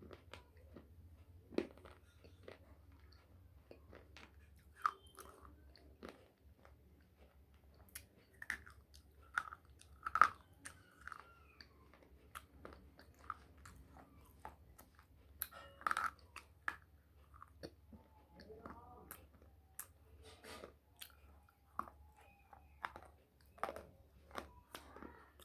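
Slate pencil being bitten and chewed: sharp, irregular crunches and clicks, a few louder bites among many small ones.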